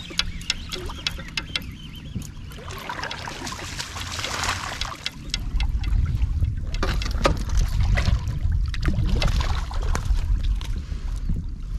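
Water splashing and lapping around an inflatable pontoon fishing boat, with repeated sharp clicks and knocks from handling the boat and tackle. About five seconds in, a strong low rumble sets in and stays.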